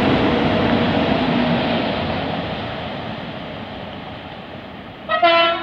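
A freight train hauled by SNCF E436 electric locomotives rumbles past on the rails, its noise steadily fading as it draws away. About five seconds in, an approaching electric train sounds a short, loud horn blast.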